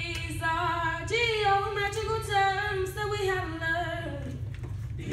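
A single voice singing an unaccompanied melodic phrase in held, gently bending notes, a line of a classroom song about geometry terms. It stops about four seconds in.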